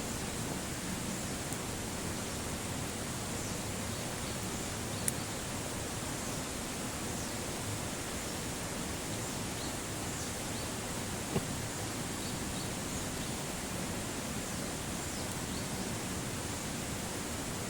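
A steady rushing noise, with two single sharp clicks, one about five seconds in and one about eleven seconds in.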